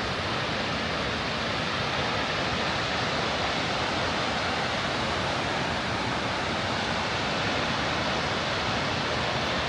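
Steady, even rush of a large waterfall: Shoshone Falls on the Snake River, dropping about 200 feet.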